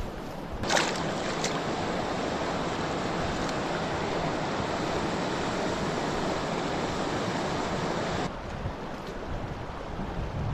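Steady rush of river water, starting suddenly with a short knock about a second in and cutting off abruptly near the end.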